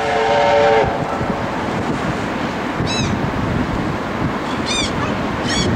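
Steady wind and surf noise on an open seafront, with three short, high, arching calls in the second half. A steady multi-note whistle tone cuts off in the first second.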